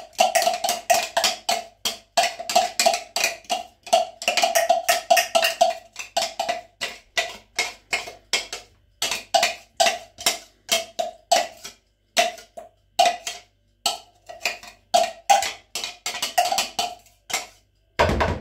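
Metal spoon scraping and knocking chopped onion out of a clear plastic chopper container: a quick, uneven run of sharp clacks, each with a short ringing ping, with a few brief pauses.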